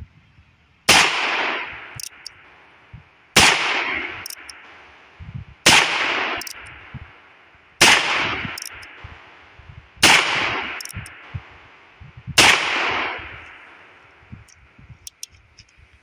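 Six shots from a Heritage Rough Rider single-action .22 revolver firing .22 WMR magnum rounds, spaced about two and a half seconds apart. Each shot has an echo that trails off over about a second. A light metallic click follows each shot as the hammer is thumbed back, and there are a few more small clicks near the end.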